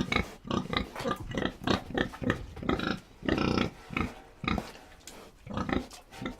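Domestic pig grunting: a run of short, irregular grunts, with one longer grunt about three and a half seconds in.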